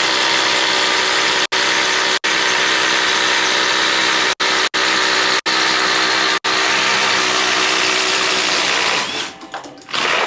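Hercules 20V brushless 1/4-inch impact driver boring a 7/8-inch spade bit through a wooden board, running steadily under load; the sound cuts out for a split second several times. About nine seconds in the motor stops and the bit is worked back out of the hole with some scraping and rubbing.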